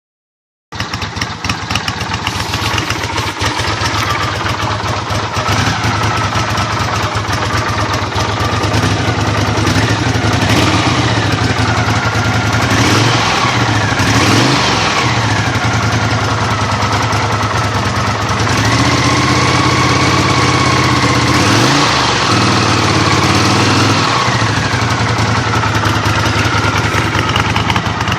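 Honda CX500's liquid-cooled V-twin engine idling roughly. The revs rise and fall a few times in the middle, then are held up for a few seconds and drop back to idle.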